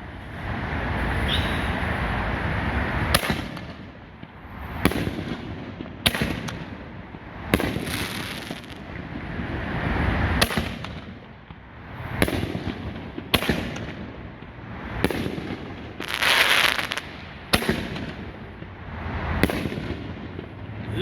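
Aerial fireworks bursting in a steady series: about a dozen sharp reports, roughly one every second and a half, with a noisy rushing swell between them.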